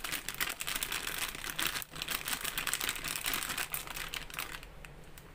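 Rapid crinkling and rustling of a plastic flour packet, handled while dry coating flour is readied for chicken hearts. It thins out about four and a half seconds in.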